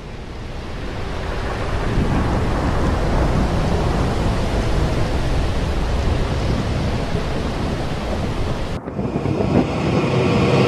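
Thunderstorm sound effect: a steady roar of wind and rain with deep rolling thunder, swelling over the first couple of seconds. Near the end it dips sharply for a moment and changes texture.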